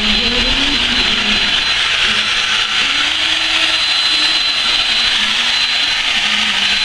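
Electric drill running continuously with no load, a steady churning whir with a thin high whine on top.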